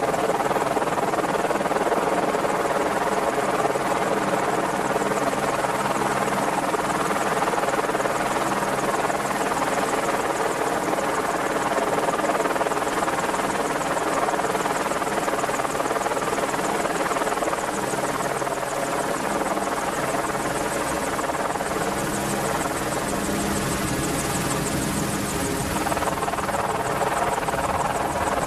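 Merlin helicopter's rotors and turbine engines running with a steady, continuous beat and whine, its tone shifting slightly near the end.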